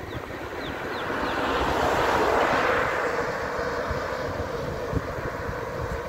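A box truck overtaking at close range: its tyre and engine noise swells to a peak about two seconds in, then fades as it pulls away. Wind rumbles on the microphone throughout.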